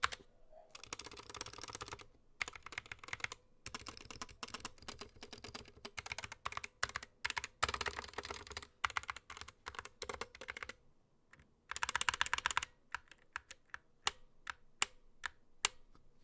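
Typing on a GK61 mechanical keyboard with Gateron Optical Yellow linear switches: fast bursts of keystrokes with short pauses between, slowing near the end to a handful of separate single key presses.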